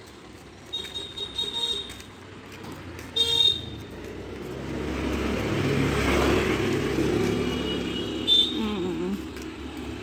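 Road traffic: a motor vehicle passes, its sound swelling and fading over several seconds, with short horn toots, the loudest about three seconds in and another near the end.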